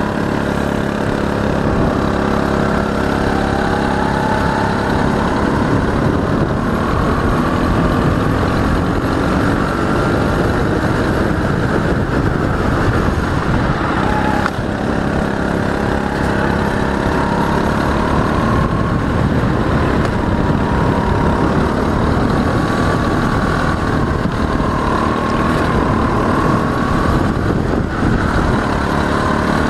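Go-kart engine heard from on board at racing speed, its pitch rising and falling as the kart accelerates out of corners and slows into them, over a steady rush of noise.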